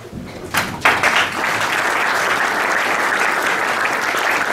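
Audience applauding: a few separate claps, then from about a second in a dense, steady applause.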